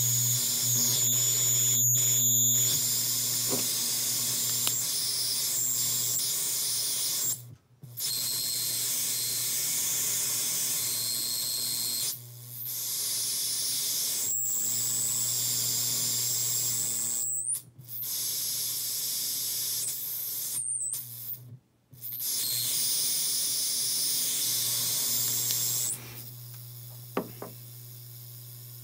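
Handmade circuit-bent noise box putting out loud static hiss over a steady low hum, with high whistling tones that slide in pitch. The sound cuts out abruptly and comes back several times. Near the end it drops away to a quieter hum.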